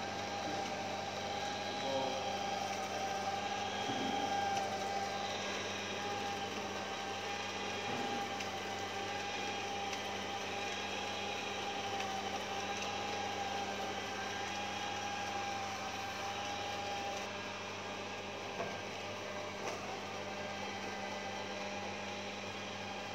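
Robot vacuum cleaner running on a tiled floor: a steady motor hum and whine with the brushes sweeping. The whine drops away about two-thirds of the way through, and there are two light knocks soon after.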